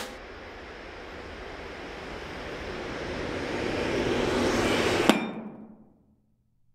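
Outro music ending on a rising swell of noise that builds for about five seconds and stops on one sharp hit, then dies away.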